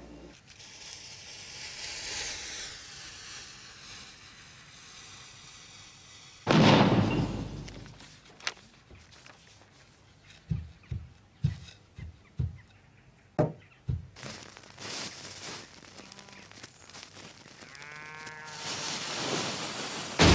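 Explosive charges and firecrackers going off. One loud bang comes about six seconds in, then a quick string of about ten sharp cracks a few seconds later. Near the end a rising rush swells into another loud blast.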